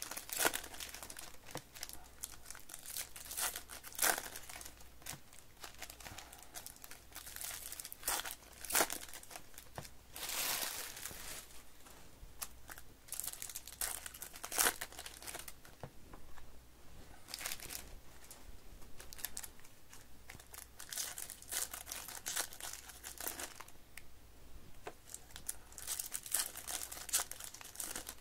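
Foil wrappers of Topps baseball card packs crinkling and tearing as the packs are ripped open by hand. It comes in irregular bursts, with a few sharp, louder tears.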